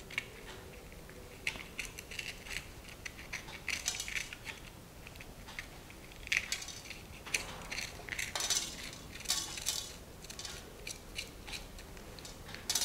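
Small kitchen knife scraping the seeds out of slit red chillies over a steel plate: scattered light clicks and scrapes of the blade and seeds against the metal, at irregular intervals.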